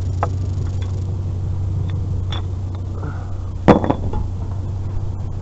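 A vehicle engine idling steadily underneath a few light clinks of scrap metal being handled, with one loud metal clank a little past halfway.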